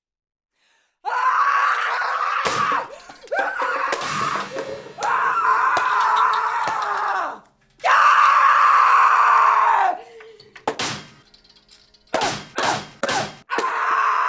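A young woman screaming in frustration, four long yells of about two seconds each and a shorter one near the end. A few sharp whacks or knocks fall between the yells, most of them in a quick cluster after the fourth scream.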